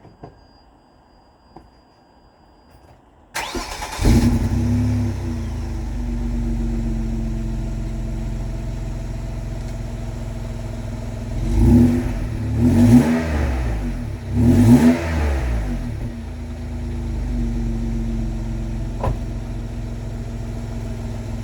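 Vauxhall Vectra V6 engine heard through a newly fitted aftermarket rear silencer (back box). It comes in about three seconds in and idles, is revved three times in quick succession in the middle, then settles back to a steady idle. The exhaust is sound, with no blowing.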